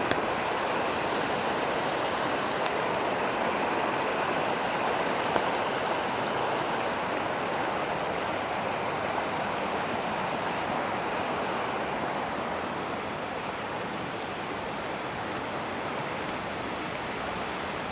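Steady rush of running rainwater, a rain-swollen stream, with no let-up.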